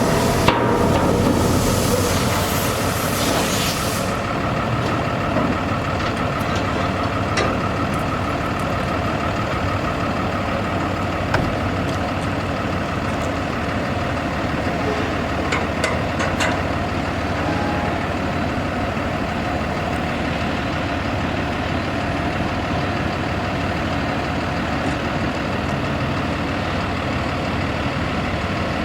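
Diesel engine of an International MV dump truck, a Cummins 6.7-litre, running steadily at idle. A hiss in the first few seconds cuts off suddenly, and a few sharp clicks are scattered through the rest.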